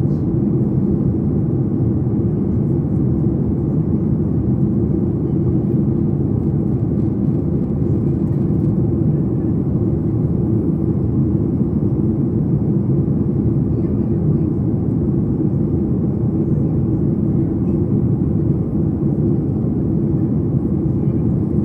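Steady low drone of a Boeing 737 MAX 8 in flight, heard inside the passenger cabin: airflow and engine noise, even and unchanging.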